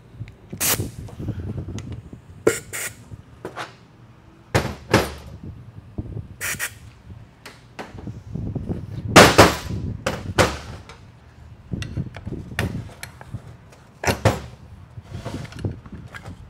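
Metal Ford 4R70W transmission parts knocking and clanking against each other and the workbench as they are handled during a teardown: about a dozen sharp, irregular knocks, the loudest about nine seconds in, with a brief ring after it.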